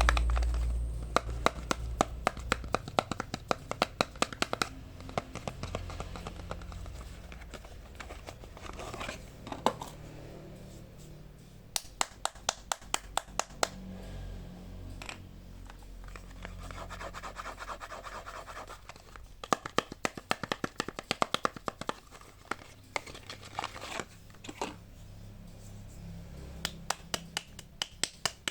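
Hands opening soap packaging: scratching, crinkling and tearing of the wrappers, with several runs of quick, sharp clicks.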